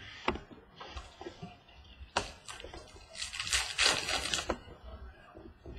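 Trading cards and their foil pack being handled: a few light clicks and taps, then a crinkly rustle lasting over a second about three seconds in.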